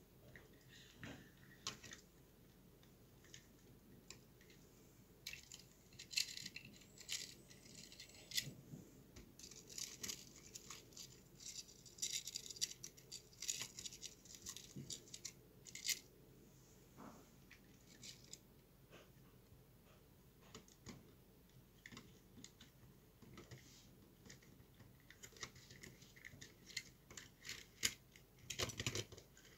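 Faint, irregular clicks and rattles of plastic Lego Technic parts being moved and handled by hand, coming in flurries, busiest in the middle and again near the end.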